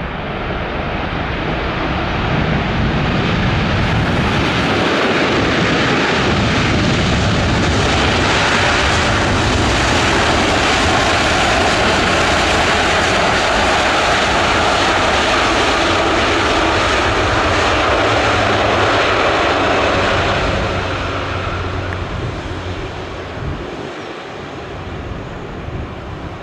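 Boeing 787-9 airliner's twin turbofan engines running loud as it rolls along the runway. The roar builds over the first few seconds, holds steady, then fades from about 21 seconds in as the jet moves away.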